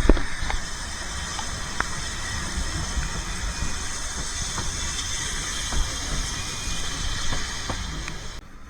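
Narrow-gauge steam train: a steady hiss over a low rumble, with scattered light clicks, cutting off abruptly near the end.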